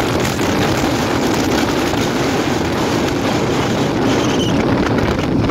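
Kawasaki sport bike riding along at road speed: the engine runs steadily under a heavy rush of wind on the onboard microphone.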